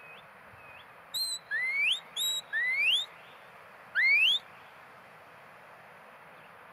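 Shepherd's whistle commands to a working sheepdog. A short steady high note, then a rising one, another steady note and another rising note in quick succession, followed about a second later by a single rising whistle.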